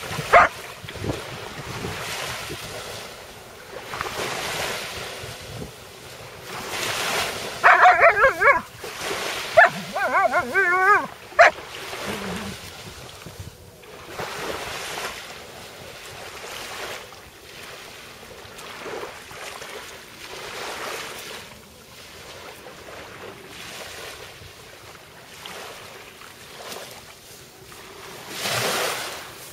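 A Malamute vocalizing in two wavering, pitched bursts about eight and ten seconds in, over the repeated wash of waves on the shore. There is also a short sharp sound right at the start.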